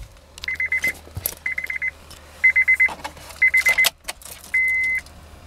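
2012 Honda Pilot's dashboard warning chime beeping in half-second bursts about once a second: four rapid trilling bursts, then a plain steady beep about four and a half seconds in. Keys jangle and click in between.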